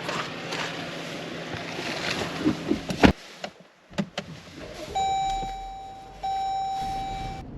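Steady outdoor noise, then a sharp knock about three seconds in and a smaller one about a second later, like car doors shutting. Then a car's electronic warning chime sounds twice, each tone held for about a second.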